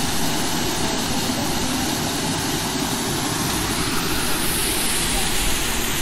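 Waterfall: water falling and splashing in a steady, even rush.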